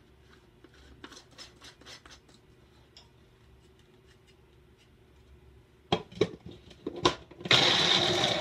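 Faint handling clicks, then several sharp plastic knocks as a personal blender's cup of raw chicken chunks is pressed onto its motor base. About a second before the end, the blender starts and runs loudly and steadily, grinding the seasoned chicken into nugget mix.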